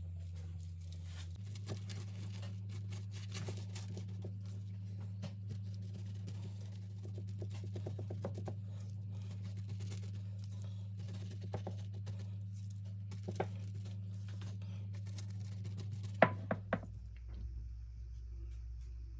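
Silicone pastry brush dabbing and stroking garlic butter onto baked bread knots: small, irregular wet taps and clicks, with a few sharper knocks near the end, over a low steady hum.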